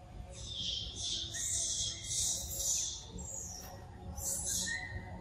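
Birds calling in the trees: repeated short, high chirping bursts.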